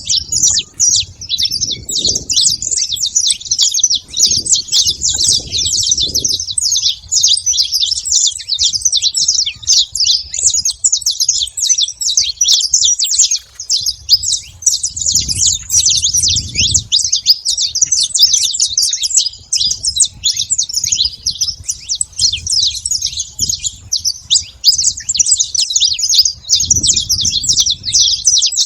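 A flock of saffron finches calling and singing together, many overlapping chirps and trills in a dense, continuous chatter.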